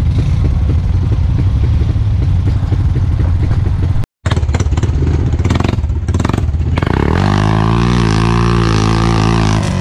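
Off-road vehicle engines running on a dirt trail: a steady low engine rumble, cut off briefly about four seconds in. Then, about seven seconds in, an ATV engine revs up and holds a steady higher pitch.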